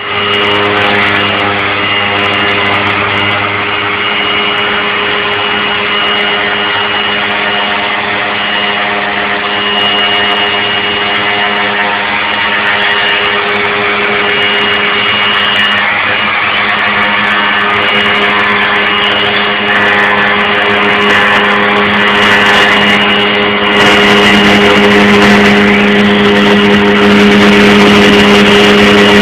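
Homemade milling machine running: a steady motor whine with a higher tone that comes and goes, growing louder about 24 seconds in.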